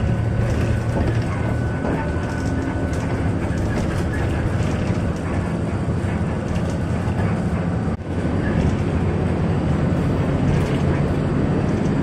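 City bus cabin noise while cruising on a highway: a steady low engine drone with tyre and road rumble. The sound dips sharply for a moment about eight seconds in.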